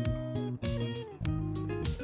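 Background music: a guitar-led instrumental with bass and a steady drum beat.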